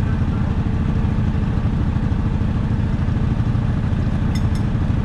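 ATV engine running steadily at low revs, with a couple of brief high clicks about four seconds in.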